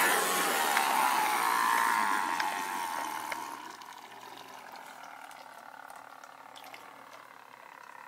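Brushed electric motor of a radio-controlled boat running at speed, a whine with the rush of water from its wake. It is loud as the boat passes close, then fades away over the first four seconds as the boat moves off.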